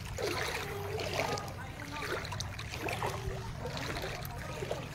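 Water sloshing and swishing as people wade through thigh-deep floodwater, with faint voices in the distance.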